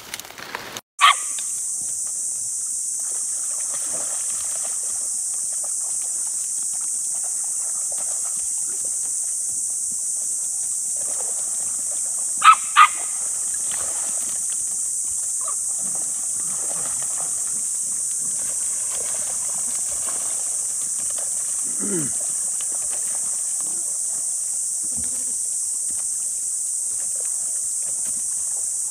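A small dog gives a short yap about a second in and two quick yaps about halfway through, over a steady high-pitched hiss.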